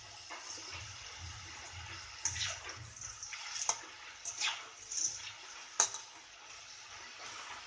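Soaked green peas deep-frying in hot oil in a wok: a steady sizzle with several sharp pops and crackles, the loudest about six seconds in. The popping comes from water still inside the peas spitting in the oil.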